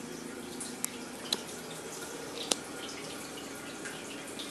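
Overflowing toilet: water running and trickling steadily, with a few sharp drips.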